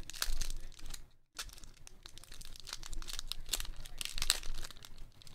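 Clear plastic bag around a trading card crinkling and crackling as fingers pull it open: a quick, irregular run of crackles with a brief pause about a second in.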